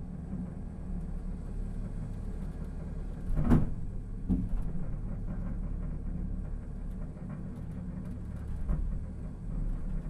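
Small elevated-rail sky capsule car running along its track, a steady low rumble and vibration from the cabin. A sharp knock about three and a half seconds in, and a smaller one just after.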